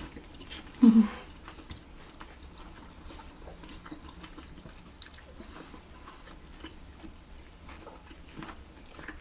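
People chewing food, heard as faint scattered clicks and smacks, with bites into corn on the cob. A short hummed voice sound about a second in is the loudest moment.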